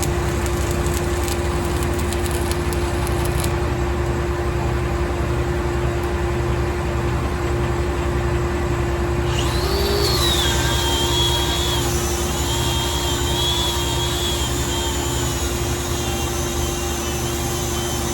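Stick-welding arc crackling steadily as a bead is run with 7018 rod, over the steady hum of an engine-driven welder running under load. A wavering high tone joins about halfway through.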